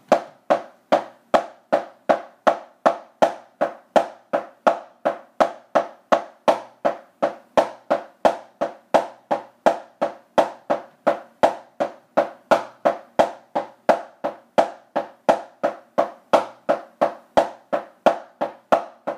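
Drumsticks on a drum practice pad playing a double-stroke roll rudiment: evenly spaced sharp hits, just under three a second, held at a steady tempo.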